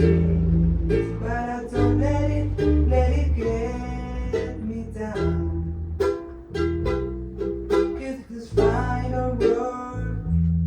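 Live rehearsal music: strummed plucked strings, ukulele-like, over held bass notes that change every second or so.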